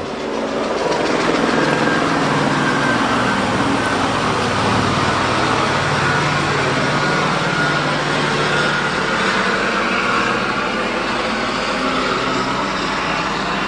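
A motor vehicle running: a steady engine hum under an even noise, rising a little about a second in and then holding.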